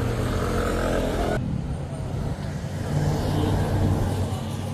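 Motor vehicle engines running in a street, a steady low rumble of traffic. The sound changes abruptly about a second and a half in.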